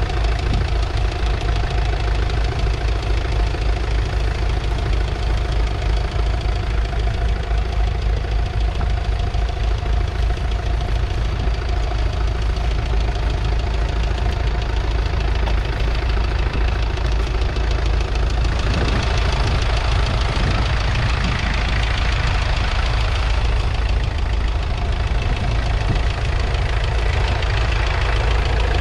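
1963 McCormick International B414's 2.5-litre four-cylinder diesel engine running steadily as the tractor pulls a mounted two-furrow plough. The sound turns brighter about two-thirds of the way in.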